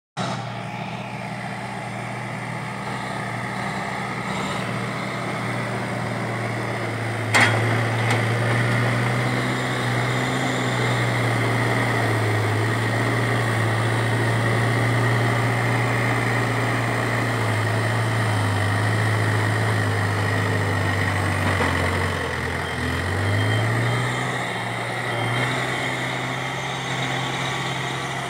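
Case 770EX backhoe loader's diesel engine running steadily as the loader works soil with its front bucket, the revs sagging and picking back up about three quarters of the way through. A single sharp knock about seven seconds in.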